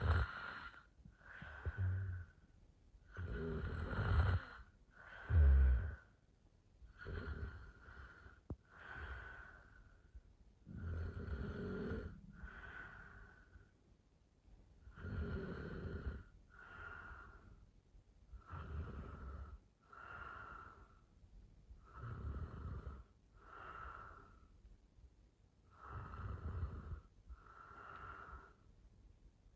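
A sleeping woman snoring in a steady rhythm, one snoring breath sound about every two seconds, the loudest ones in the first six seconds.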